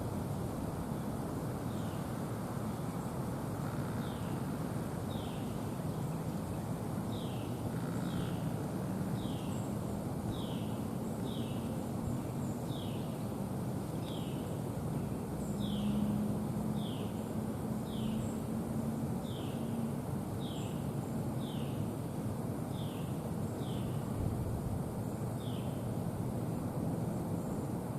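A bird calling with short, high, falling notes, repeated about once a second, over a steady low rumble of distant engine noise.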